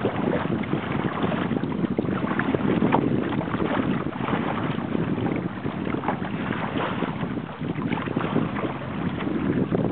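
Wind buffeting the microphone over lake water splashing and slapping against a sailing kayak's hull as it moves through the chop, a steady rushing noise with constant small splashes.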